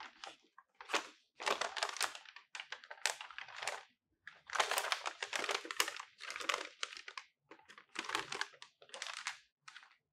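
A large sheet of thin paper, a folded instruction leaflet, crinkling and rustling as it is handled and folded, in a series of irregular bursts with short pauses between them.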